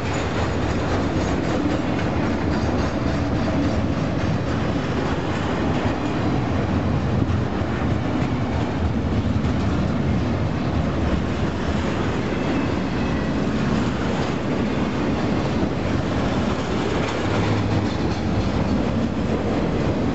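Double-stack container well cars of a freight train rolling past close by: a steady, even noise of steel wheels running on the rails.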